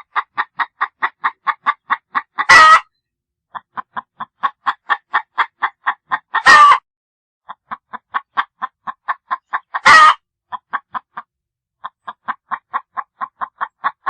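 Chicken cackling: runs of short, quick clucks, about five a second, each run ending in one loud drawn-out squawk. The pattern repeats four times almost identically.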